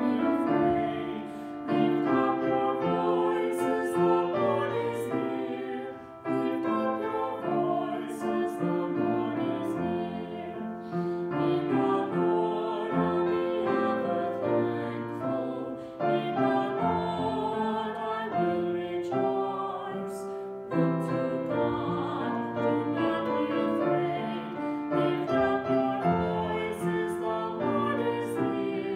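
Upright piano playing a slow piece of held notes and chords.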